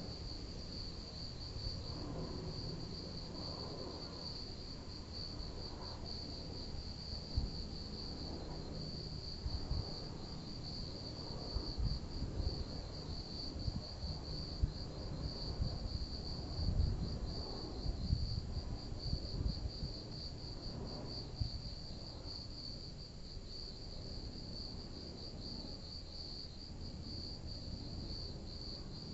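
A low, uneven rumble from a helicopter flying somewhere overhead, swelling in the middle of the stretch and easing off toward the end, under a steady high trill of insects.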